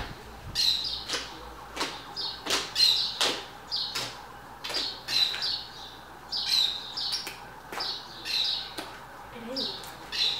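A giant batch of slime, about ten kilos, being kneaded, stretched and pressed on a wooden table: repeated wet squelches and sticky crackling pops, about two a second.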